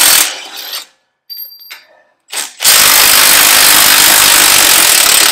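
Impact wrench hammering on the strut's lower mounting bolts. It cuts off just after the start, gives a short blip about two and a half seconds in, then runs steadily from just under three seconds on.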